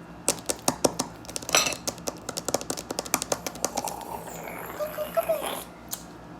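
Acrylic fingernails tapping and clicking quickly on a hard surface, a fast run of sharp clicks that thins out after about three and a half seconds.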